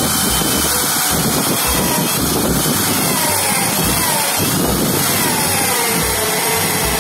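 Electric drill in a drill press running steadily under load as its bit bores into a wooden block, with a pulsing low rumble underneath.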